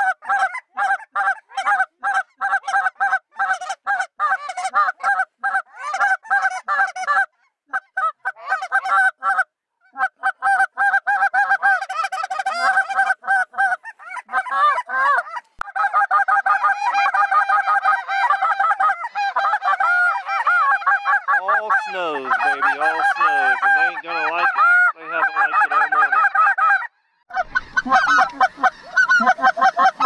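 A large flock of snow geese calling overhead: a dense, continuous chorus of high, rapid honks, broken by a few sudden short gaps. Lower, wavering honks join in about three-quarters of the way through.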